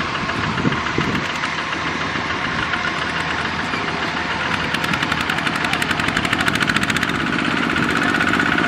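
Kubota RT155 walking tractor's single-cylinder diesel engine running under load as it pulls a loaded trailer, with an even, rapid beat that grows louder and clearer over the last few seconds as it comes closer.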